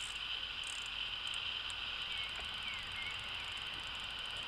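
Outdoor ambience: a steady high-pitched chorus with a few faint chirps about two to three seconds in.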